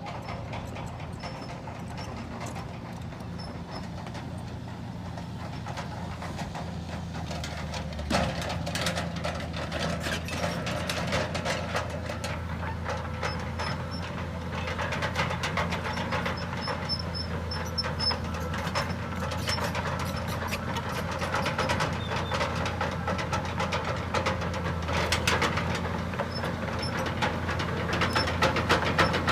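Diesel engine of heavy earthmoving machinery running with a steady low drone. About eight seconds in it gets louder and a dense metallic rattling and clanking sets in, growing louder toward the end.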